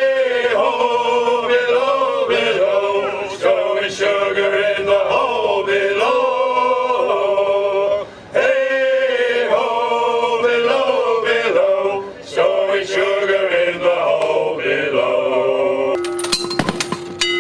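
A group of men singing together in harmony, unaccompanied, in phrases with short breaks between them. About a second before the end the singing cuts off and a few sharp knocks and a steady ringing tone follow.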